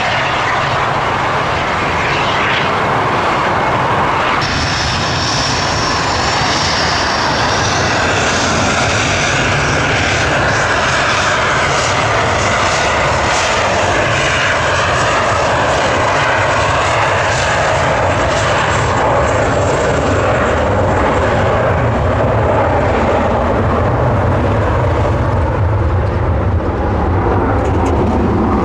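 Dassault Falcon 20 business jet's twin turbofans run at high power for take-off: loud, steady jet noise. About four seconds in, a high whine comes in and climbs in pitch as the engines spool up, then holds while a deeper rumble builds later on.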